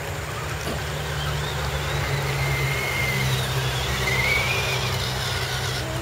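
Electric motors and gearboxes of RC scale crawler trucks whining, the pitch rising and falling a few times over a steady low rumble.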